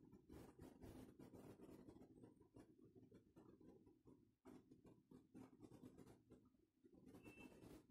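Faint handling noise: a cast epoxy-resin cylinder is lifted off its wooden lamp base and turned in the hand, giving many light rubs and taps.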